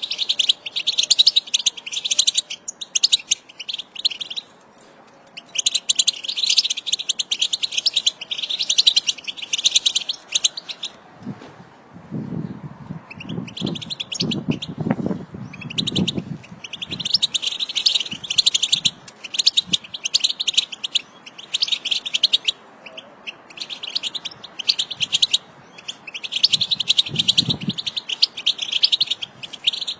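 A flock of European goldfinches twittering: dense, rapid high chattering in bouts of a few seconds with short pauses between. A low rumbling runs under it near the middle and briefly near the end.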